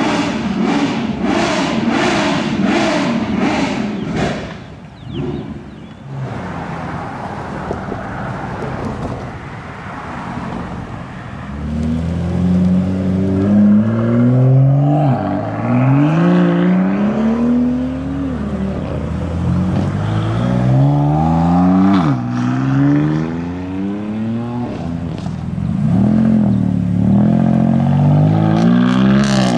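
Supercar engine accelerating hard through the gears: its pitch climbs, then drops back at each upshift, four times over the second half. Earlier, loud even pulses come about twice a second for the first few seconds.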